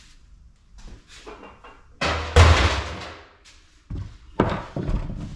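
Heavy thuds of a steel scrap piece being thrown onto the shred pile. The loudest hit comes about two seconds in and dies away over about a second, followed by more knocks about four seconds in.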